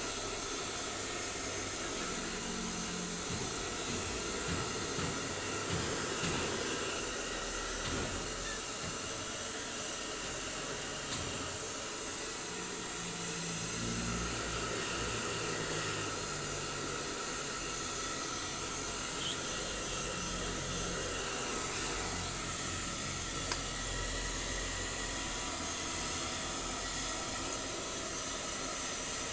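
Handheld hair dryer blowing steadily with an even, unbroken hiss of air, drying a dog's wet fur.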